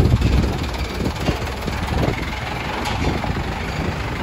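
Light cargo truck's diesel engine running at low revs close by as the truck creeps forward, a steady low rumble that is loudest right at the start.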